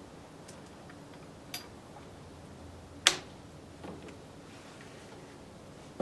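Werndl rifle's breech action being worked by hand: a few small metallic clicks and one sharp, louder click about three seconds in, as the rifle is readied to fire.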